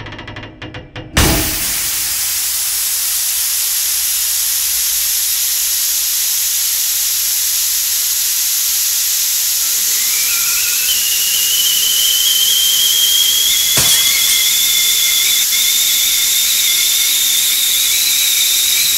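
Steam hissing loudly, starting suddenly about a second in as music cuts off. About halfway through a high whistle joins it, slowly rising in pitch, with a single sharp crack a few seconds later.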